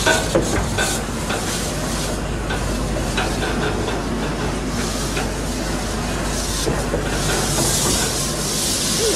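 Old steam train on a rack railway running slowly, heard from on board: a steady rumble with wheel clicks and rattles, and a strong hiss that swells for a couple of seconds near the end.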